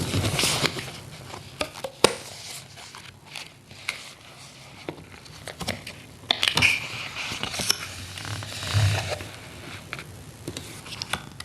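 Paper being handled: crinkling and rustling with scattered light taps and clicks.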